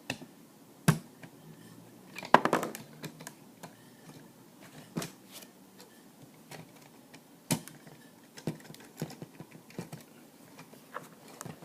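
Hard plastic clicks and knocks from B-daman toy parts being handled and slotted together: scattered sharp clicks, with the loudest cluster about two seconds in.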